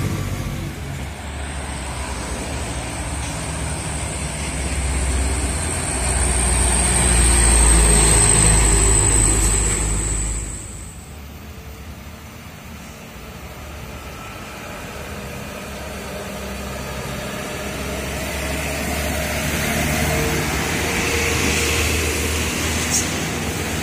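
Diesel truck engines and road noise: a box truck passing close by, with a steady high whine over its rumble for about the first ten seconds. After a sudden drop, a quieter truck engine sound that gradually grows louder.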